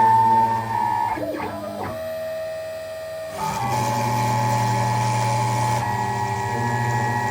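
Genmitsu PROVerXL 6050 Plus CNC router carving plywood: its stepper motors whine in steady tones that jump to new pitches as the axes change direction. There is a brief gliding shift between one and two seconds in, and a louder shift about three and a half seconds in.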